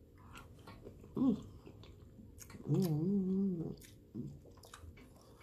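A person chewing a mouthful of shrimp, with soft wet mouth clicks, and humming "mmm" in enjoyment: a short hum about a second in, then a longer, wavering one near the middle.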